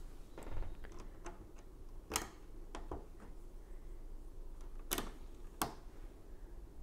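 Lego tiles being pressed onto a studded plate: a series of sharp plastic clicks, the loudest about two seconds in and twice around five seconds in.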